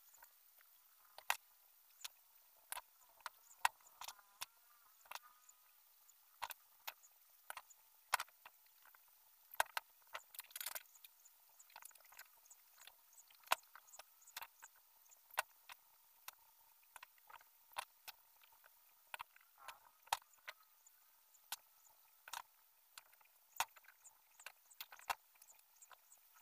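Irregular light clicks and taps of the black wire ribs of a bird cage knocking together as they are handled and bent into place, with a short scrape about ten seconds in.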